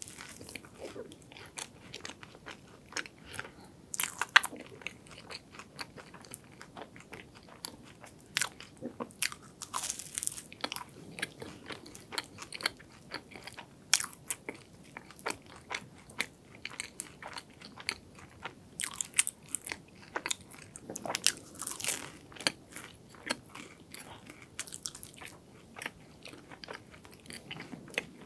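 Close-miked eating of a crisp honey apple croffle: sharp, crackling crunches of the caramelised waffle-pressed pastry crust as it is bitten and torn, with chewing in between. The crunches come irregularly, a few of them louder than the rest.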